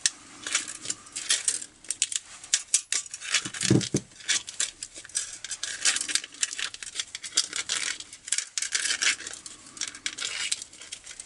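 Flat steel recoil spring of a grass trimmer's pull starter being wound by hand into the starter housing: a continuous irregular run of metallic clicking, scraping and rattling as the coils rub and slip against each other. A low knock about four seconds in.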